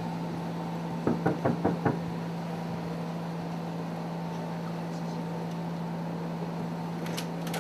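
About five quick knocks on a motel room door, starting about a second in, over a steady low hum.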